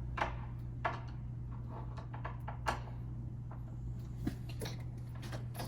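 Screws on a door lockset being loosened by hand with a screwdriver: a few light, separate clicks and taps of metal on metal, over a steady low hum. The lock is being loosened because it is mounted too tight and the key sticks.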